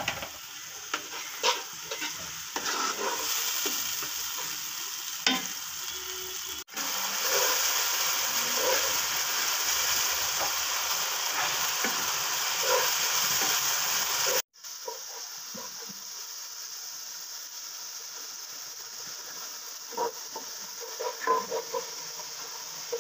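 Onion and spice masala sizzling as it fries down in oil with a little water, stirred and scraped around the pot with a wooden spatula. The sizzle changes level abruptly about 7 s and 14.5 s in, loudest in the middle stretch.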